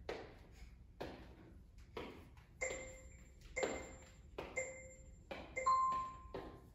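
Workout interval timer counting down: four short, evenly spaced beeps a second apart, then one longer beep at a different pitch marking the start of the next set. Under it run regular thuds about once a second.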